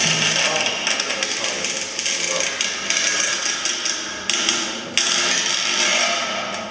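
Recording of ground cracking and splitting: a dense crackle of many sharp snaps and clicks. It jumps suddenly louder about five seconds in.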